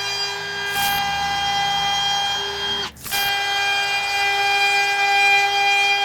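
High-speed power carving tool whining steadily as it cuts into wood, with a brief break about halfway through.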